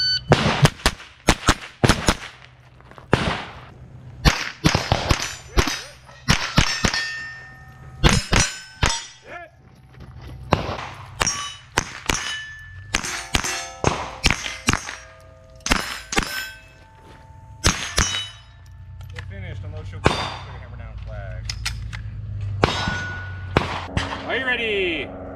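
AR-style rifle fired in quick strings at steel plate targets, each sharp shot followed by the ringing clang of a hit steel plate, with short pauses between strings.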